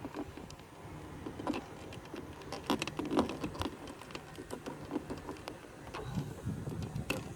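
Irregular plastic clicks, taps and scrapes as a plastic trim tool pries at the window switch panel in the car door.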